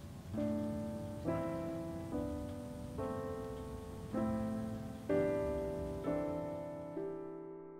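Background music: soft piano chords struck about once a second, each ringing out and fading before the next.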